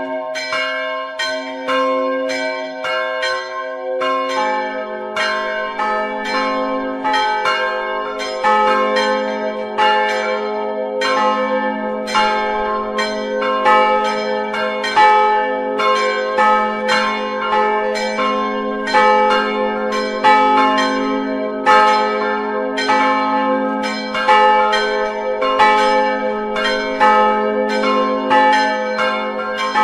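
Church bells ringing in a rapid, continuous run of strikes, about three a second, each tone ringing on into the next.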